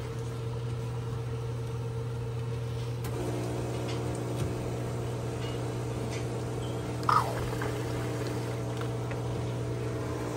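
Soda fountain drink dispenser pouring soda into a glass over the machine's steady low hum. The hum gains a few higher tones about three seconds in. A short, sharp high sound, the loudest moment, comes about seven seconds in.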